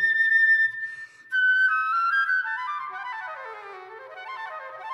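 Concert flute playing a slow, sweet melody: a long held high note, a short pause for breath about a second in, then a run of notes stepping down to the low register and climbing back up near the end.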